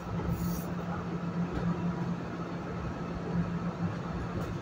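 New York City subway train heard from inside the car as it moves slowly along elevated track: a steady rumble of wheels on rail under a constant low hum.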